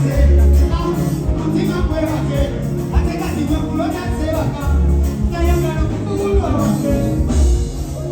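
Loud music with a heavy bass beat and a singing voice.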